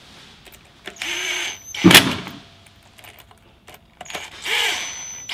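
Cordless drill driving the screws of a rope ladder step clamp in two short bursts, the motor winding up and slowing, to snug them into the clamp's brass threads. Each burst ends with a sharp knock; the second, near the end, rings like struck metal.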